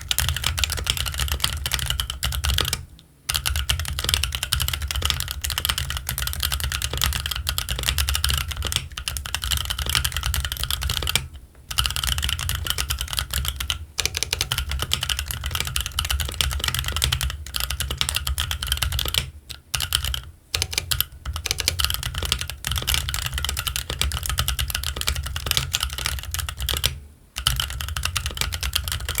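Fast continuous typing on a Keychron Q1 mechanical keyboard with Gazzew Boba U4T tactile switches and Cherry-profile ABS keycaps: a dense stream of keystrokes broken by a few brief pauses.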